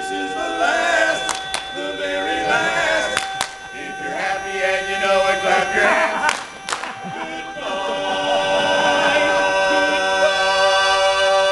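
Male barbershop quartet singing a cappella in close four-part harmony, with a few sharp clicks in the first half. From about eight seconds in they hold a sustained chord.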